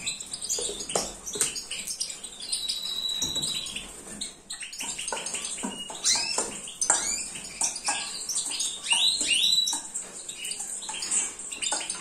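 Small cage birds, goldfinches and canaries, chirping with short high calls, while a spoon scrapes and clinks in a stainless steel bowl as a dry, crumbly bird food mix is stirred.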